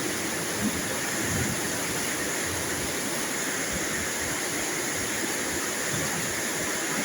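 Steady, heavy rainfall: an even, unbroken hiss of rain.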